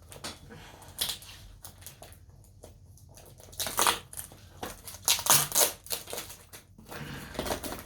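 Packaging crinkling and rustling as a parcel is opened by hand: scattered crackles at first, then louder, denser crinkling in the second half.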